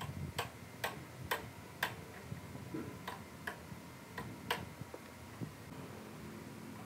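Sharp clicks of metal parts and tools during hand work on a small generator engine: four about half a second apart, then four more at uneven spacing.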